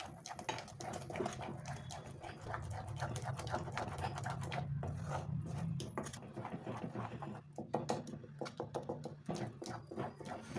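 Wooden spatula stirring a thick, sticky moong dal sweet mixture around a pan: quick wet squelching and scraping, over a low steady hum.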